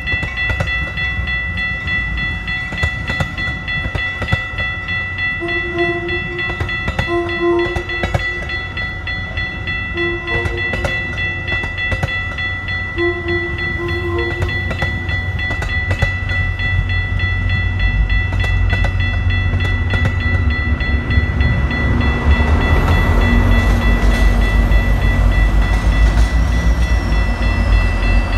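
Metra commuter train rolling past: wheels clicking over rail joints as the double-deck cars go by, with a low diesel rumble that grows louder over the last third as the MP36PH-3S locomotive pushing at the rear comes up. Steady high ringing tones run throughout, and a few short low tones sound between about a fifth and half of the way in.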